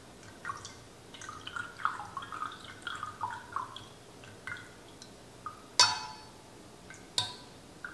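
Tomato juice dripping from a small mesh sieve into a stainless steel canning funnel and glass mason jar, a quiet run of small plops, followed by two sharp metallic clinks about a second and a half apart as the sieve meets the funnel.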